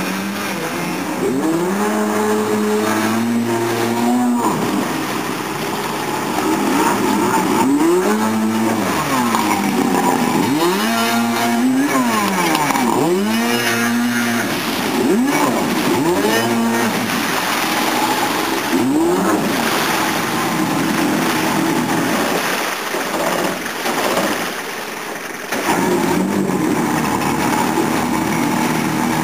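Jet dinghy's two-stroke 750 jet ski engine running hard, its revs rising and falling over and over as the throttle is worked through tight turns, over the hiss of the jet wash.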